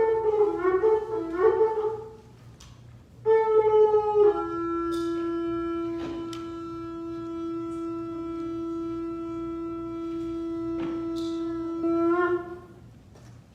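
Shofar blown: about two seconds of short wavering, broken notes, then after a pause a brief higher note that drops into one long steady blast held for about eight seconds, swelling slightly just before it stops.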